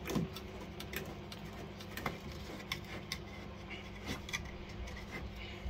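Scattered light clicks and taps as a brass thermostatic bar mixer shower valve is handled and worked loose from its wall fixings.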